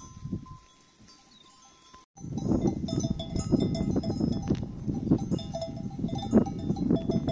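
Neck bells on a flock of sheep clinking and ringing as the flock moves, starting abruptly about two seconds in after a brief lull.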